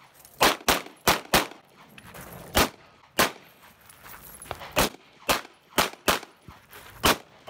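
Semi-automatic pistol firing about a dozen shots in quick strings, some in close pairs, at uneven intervals.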